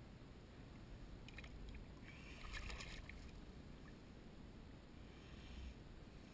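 Faint water splashing as a redfish is released back into shallow bay water: a short cluster of splashes about two to three seconds in, with a softer swish of water near the end.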